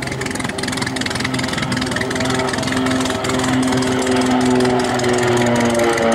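North American Rockwell OV-10B Bronco's twin Garrett T76 turboprops running in a low display pass, growing louder as the aircraft comes overhead, with the propeller tone slowly falling in pitch.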